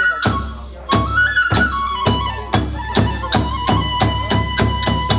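Kagura hayashi: a bamboo transverse flute holds a stepping melody over drum strokes that quicken steadily from about one and a half to about four beats a second.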